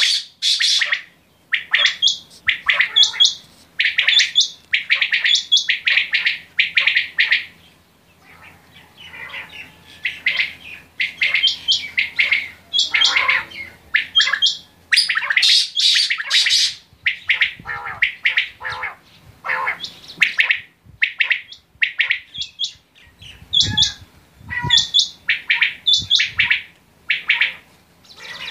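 Several caged common quail calling over and over, short chirping calls overlapping one another.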